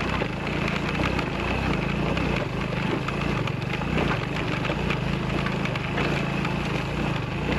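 Motorcycle engine running steadily at low speed, with many short clicks and crunches of loose stones and rattling as it rides over a rocky trail.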